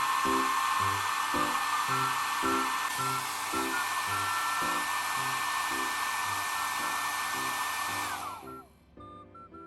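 MUJI travel hair dryer running: a steady rush of air with a high motor whine. About eight seconds in it is switched off, and the whine falls in pitch as the motor spins down.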